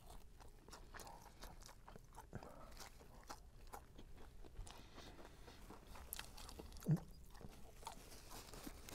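Faint chewing of crunchy fried chicken close to the microphone, with many small crackles. One short, falling vocal sound, like a hum, comes about seven seconds in.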